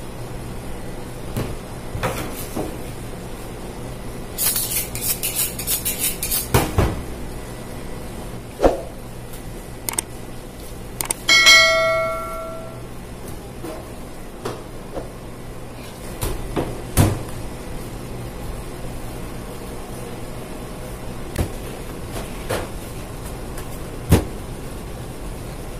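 A steady background hum with scattered knocks and taps of raw chicken being handled on a plastic cutting board and skewer. A quick rattle of clicks comes around five seconds in, and a bright bell ding, the loudest sound, about eleven seconds in: a notification-bell sound effect.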